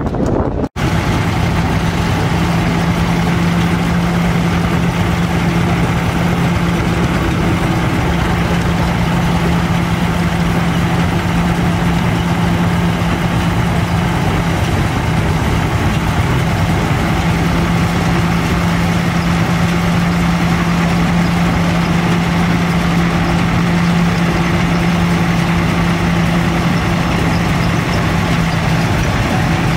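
Ködel & Böhm threshing machine running steadily at work, with a tractor engine running alongside it: a constant low hum at one unchanging pitch over a busy mechanical rattle.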